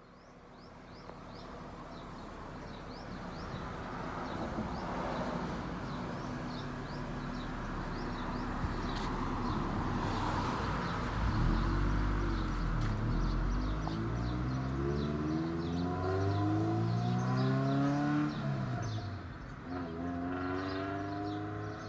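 Car engine and exhaust growing steadily louder, then revving with the pitch climbing for several seconds. The pitch drops sharply a few seconds before the end and climbs again. Birds chirp faintly in the background.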